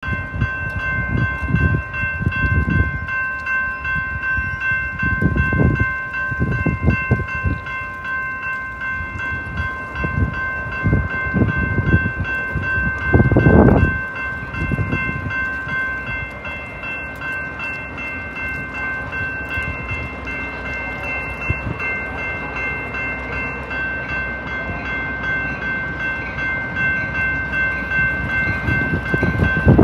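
Metra commuter trains with EMD F40PH diesel locomotives passing, with rumbling surges of engine and wheel noise, the loudest about halfway through. A steady high-pitched ringing tone sounds the whole time.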